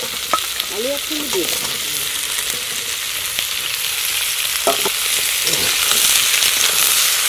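Drumstick pieces and potato slices sizzling in hot oil in a kadai, stirred with a metal spatula that clinks and scrapes against the pan now and then. The sizzle grows louder in the second half.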